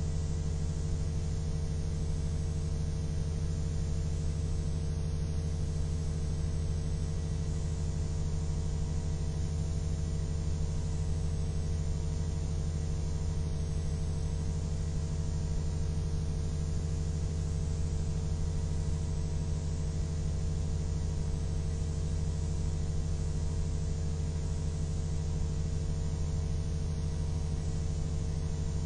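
A steady low hum with several even overtones, unchanging in pitch and loudness.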